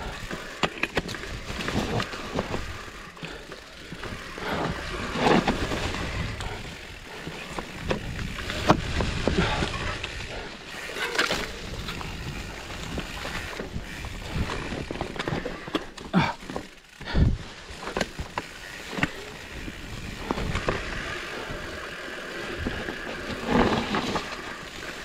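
Trek Farley fat-tyre mountain bike ridden over a wet, rough trail: steady tyre noise on the ground with frequent irregular knocks and rattles from the bike jolting over stones.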